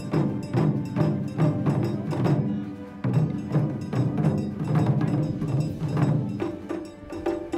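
Ensemble of Japanese taiko drums played together in a fast, driving rhythm, deep booming barrel drums under sharp stick strikes. About six and a half seconds in, the deep drums drop out and lighter, higher-pitched strikes carry on.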